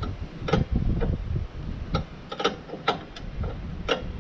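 Irregular sharp clicks and knocks of hand tools and metal parts being worked on, over a low rumble.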